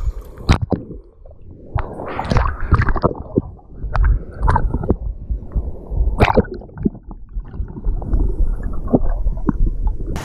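Muffled water sloshing and gurgling, with scattered knocks and clicks.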